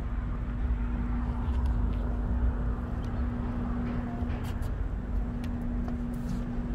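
Steady low rumble of street traffic, with a constant low hum running under it.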